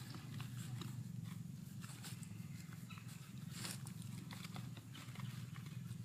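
Domestic cat purring close to the microphone: a steady, low, fluttering rumble, with a brief rustle a little over halfway through.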